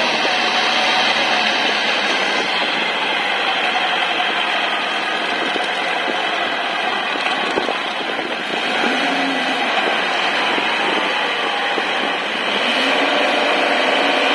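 Kubota L4508 four-wheel-drive tractor's diesel engine running steadily under load as it drives through deep paddy-field mud, the sound swelling slightly about eight seconds in and again near the end.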